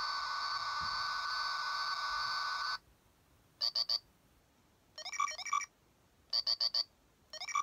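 The electronic light-and-sound brick of a 1998 LEGO Insectoids set playing its built-in sound effects: a steady electronic buzz for about three seconds, then short groups of rapid beeps and warbling chirps as different buttons are pressed. The 1998 unit still works after its batteries were left in for years.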